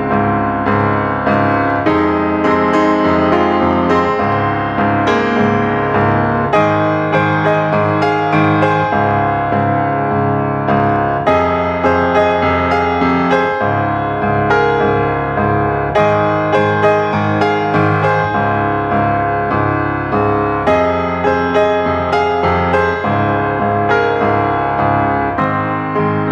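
Background piano music, a steady flow of sustained notes.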